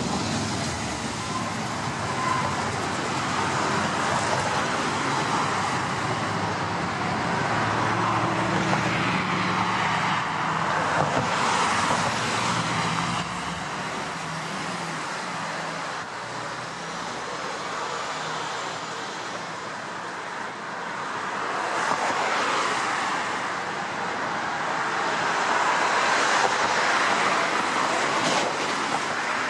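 City street traffic with trams running on street track: a bus engine hums low through the first half while a tram pulls past, it goes quieter in the middle, and the noise builds again near the end as another tram rolls in with cars passing.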